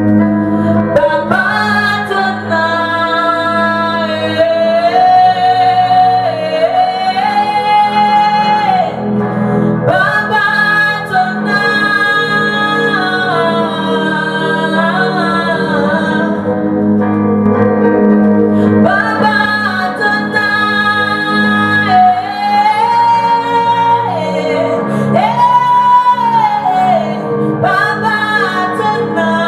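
Gospel worship song: a sung voice holding long, gliding notes over steady sustained chords.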